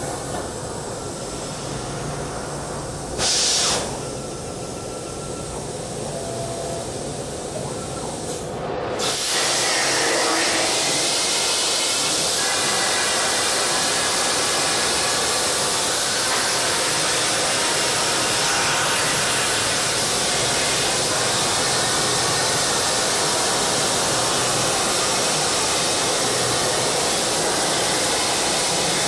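Plasma cutter torch cutting: a loud, even hiss that comes on about nine seconds in and holds steady. Before it there is a softer steady noise, with one brief loud hiss about three seconds in.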